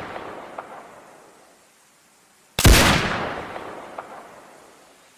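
A rifle shot about halfway through, its loud report rolling away slowly with a sharp echo coming back about a second and a half later. It opens on the fading tail and echo of an earlier shot.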